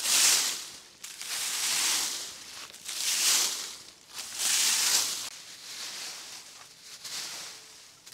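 Dry fallen leaves rustling in a series of long swishes, about one every second or so, loudest in the first half and fainter toward the end.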